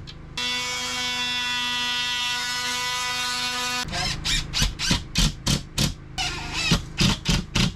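A power tool motor runs at a steady pitch for about three and a half seconds, set between rhythmic sharp knocks of about four a second.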